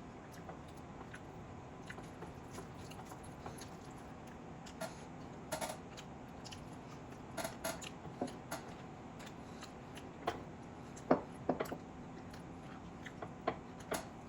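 Close-up eating sounds of a person eating chicken biryani: irregular wet smacks and clicks of chewing, with a handful of louder clicks in a cluster about ten to twelve seconds in.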